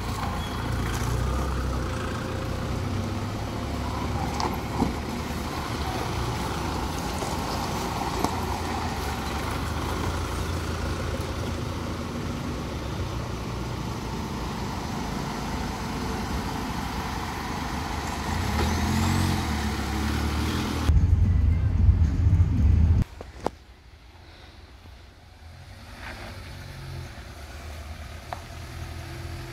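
Engines of Mahindra Thar and MM540 jeeps running steadily as they pull away, with a louder low rumble for a couple of seconds that ends abruptly. After that, a quieter engine sound approaches and grows louder.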